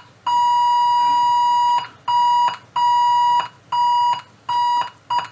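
A steady 1 kHz test tone, the signal generator's AM modulation, comes through the valve radio while it is fed an IF-alignment signal near 455 kHz. The tone cuts out briefly and returns about six times as the generator frequency is stepped, and it is heard only while the signal passes the radio's IF stage.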